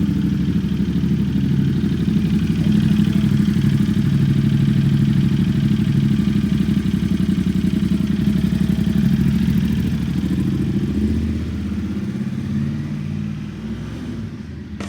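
Motorcycle engine running steadily with a fast, even firing pulse, growing quieter after about eleven seconds.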